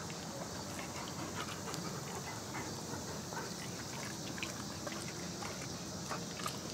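A German Shepherd and a pit bull chewing and tugging at a raw beef tongue: wet chewing and tearing with many small scattered clicks.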